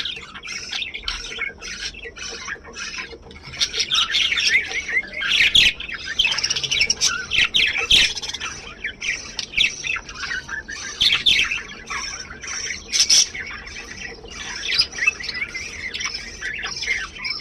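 Many small birds chirping and squawking together, their short calls overlapping in a dense chatter that is busiest in the middle stretch.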